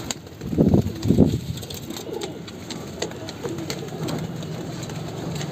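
Domestic pigeons cooing, with two louder coos about a second in and softer ones after.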